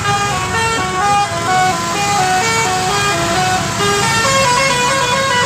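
Indonesian 'telolet' bus horn, a Basuri multi-tone horn, playing a quick tune: a string of short held notes, each a fraction of a second long, jumping up and down in pitch.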